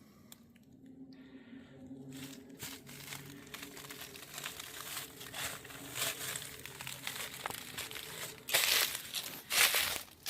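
Footsteps crunching and crackling through dry leaf litter, irregular and growing louder, with the loudest rustles near the end.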